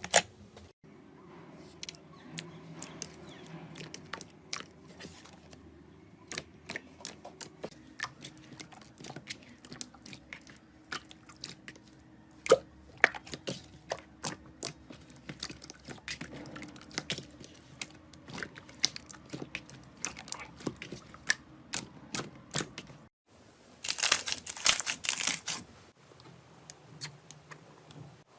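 Slime being squeezed and worked by hand, with irregular sticky clicks and small pops. A denser, louder run of crackling comes about 24 seconds in.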